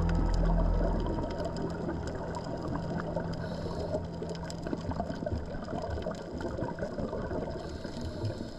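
Background music fading out in the first second, then underwater sound picked up by the camera: a steady watery rush with scattered sharp clicks and crackles.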